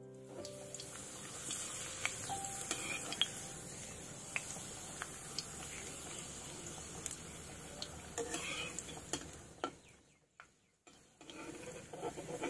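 Papad frying in shallow oil in an iron kadai: a steady light sizzle, with the steel spatula clicking and scraping against the pan as it is pressed and turned. The sound cuts out for about a second near the end.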